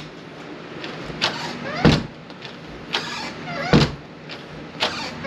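A door being swung shut three times. Each shut is a thud with the latch clicking, preceded by a lighter click and a faint squeak, as the door is checked to see whether it now latches properly.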